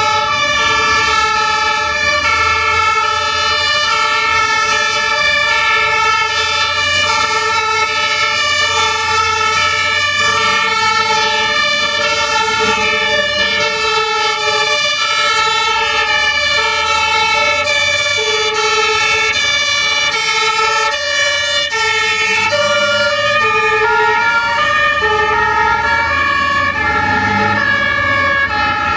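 Two-tone sirens of a fire brigade convoy and an ambulance, several horns each switching between a high and a low tone, overlapping out of step with one another, over the low rumble of road traffic.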